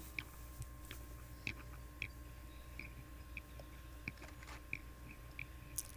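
Faint, irregular clicks and ticks from a spinning reel being cranked while a hooked fish is fought on a bent rod, over a low steady rumble.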